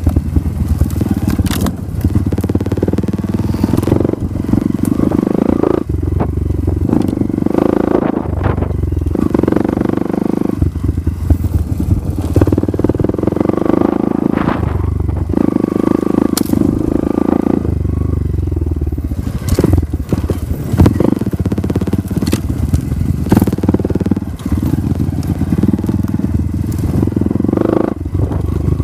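Dirt bike engine running as the bike is ridden over a rough dirt trail, the throttle opening and easing off every second or two, with knocks and rattles from the bike jolting over bumps.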